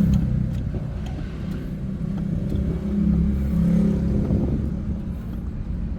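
A vehicle engine idling steadily, a low hum.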